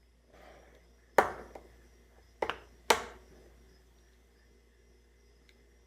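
Sharp metal clicks from Snap-on needle nose pliers handling a coin: one click about a second in, a quick double click near the middle, then another just after.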